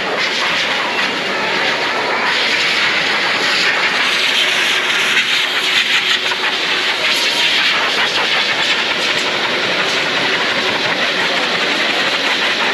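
Electric livestock blower running steadily, forcing air through its hose over a goat's coat: a loud, even rush of air.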